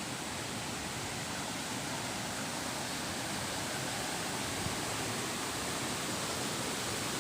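Waterfall's water falling and rushing in a steady, even noise.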